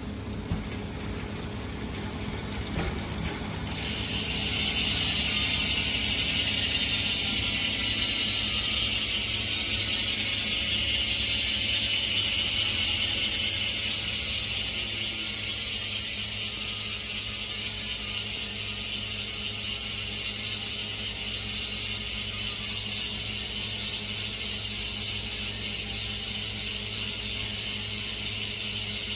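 Shimano FH-MT510 rear hub's pawl-ratchet freehub freewheeling, a fast continuous ratcheting buzz. It grows louder about four seconds in and eases off a little after about fourteen seconds, then runs on steadily.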